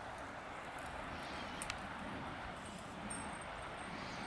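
Steady even hiss of outdoor background noise, with one faint click under two seconds in.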